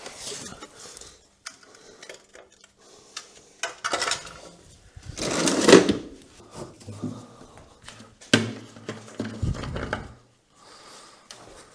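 Metal hand tools clinking and clattering as they are handled and set down, with a louder rattle about five to six seconds in.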